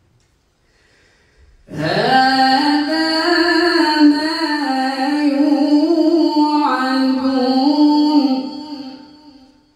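A male qari reciting the Qur'an in melodic tajwid style. After a short silence he draws out one long phrase with ornamented, wavering pitch, starting about two seconds in and fading away near the end.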